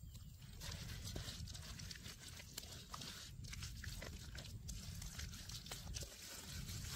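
Hands kneading and rubbing a wet chili marinade into the skin of a raw pig's head, with soft wet squishes and many small clicks over a low, steady rumble.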